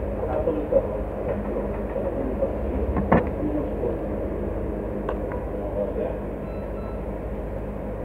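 Indistinct background voices over a steady low hum, with a sharp click about three seconds in and a fainter click about two seconds later.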